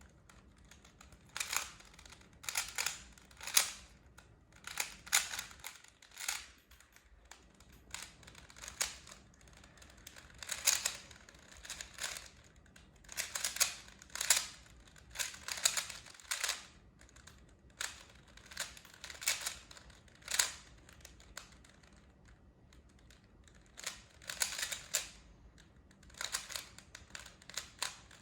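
3x3 Rubik's cube being turned by hand during a solve: quick runs of plastic clicks and clacks as the layers rotate, broken by short pauses, with two longer quiet gaps of a couple of seconds.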